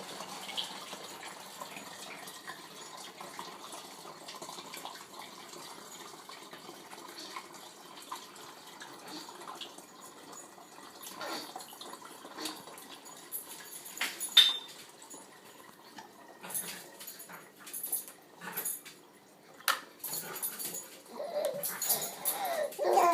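Water pouring through a funnel into a plastic 2-liter soda bottle as it is filled two-thirds full, a steady splashing run for about the first ten seconds. After that come scattered knocks and clicks of the plastic bottle being handled, with a few short pitched sounds near the end.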